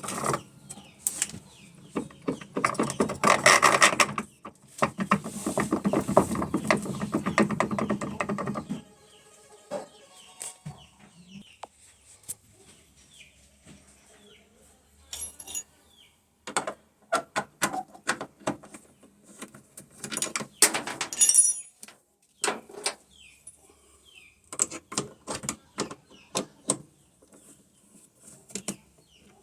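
Electrolux LT15F washing machine running with a loud buzzing mechanical noise that stops about nine seconds in, followed by scattered clicks and knocks; the noise is the sign of a machine that is starting to break down.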